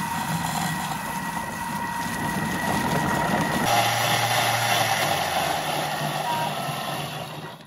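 Thermomix food processor running at blending speed, puréeing gazpacho vegetables and bread: a steady motor whine over churning liquid. About four seconds in, the tone changes and it gets a little louder, and it dies away at the end.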